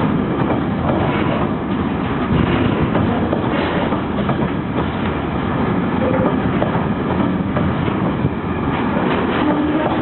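Ballast train wagons rolling past at close range: a steady, loud rumble of wheels on rails with faint short knocks running through it.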